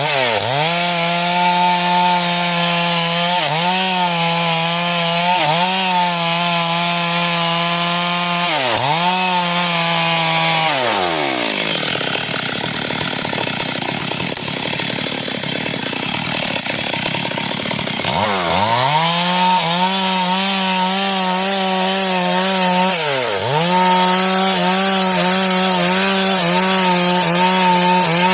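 Stihl MS 382 two-stroke chainsaw ripping dry wood at high revs, its pitch dipping briefly every few seconds as it takes the load. About eleven seconds in it drops to a low idle for some six seconds, then revs back up and cuts on.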